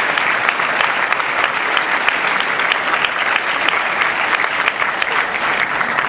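Audience applauding steadily, the dense clatter of many hands clapping at an even level.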